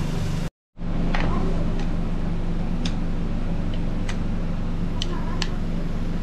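Scattered light clinks of dishes and utensils over a steady hum, after a brief cut to silence about half a second in.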